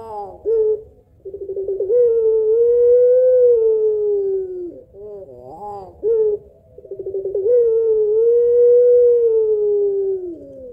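Puter pelung, a long-voiced domestic ringneck dove, cooing. A few short notes lead into a long drawn-out coo of about three seconds, and this happens twice. Each long coo opens with a quick stutter, holds steady, then slides down in pitch at its end.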